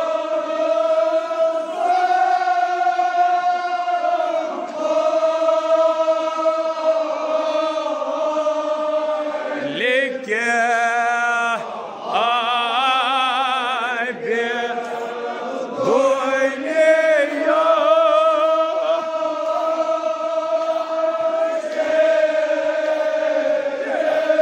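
Group of men chanting a Kashmiri marsiya in the Sareer style, a Shia elegy, in long drawn-out held notes. About ten seconds in, the voices turn to a few seconds of wavering, ornamented notes before settling back into the held line.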